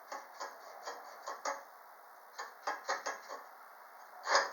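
Small irregular metal clicks and ticks, two or three a second, from handling and adjusting the diamond dressing jig on a bench grinder that is switched off. A louder click comes near the end.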